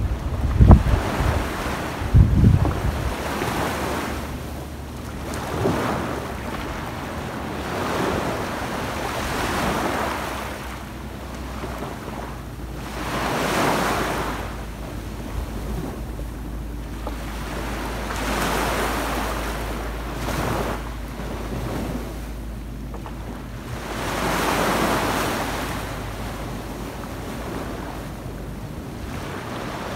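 Small waves breaking and washing up a sandy beach, the surf swelling and easing every few seconds, with wind buffeting the microphone in gusts that are hardest in the first couple of seconds.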